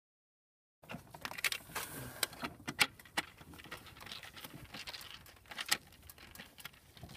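Silent for the first second. Then a screwdriver and a stiff wire scrape and click against the terminals of a sheet-metal electrical disconnect box, with a run of sharp, irregular clicks.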